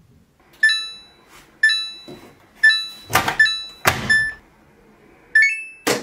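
Front-loading washing machine's control panel beeping as its buttons are pressed: single beeps about once a second, then a short rising run of notes near the end. Two heavier knocks come in the middle, with another sharp knock at the very end.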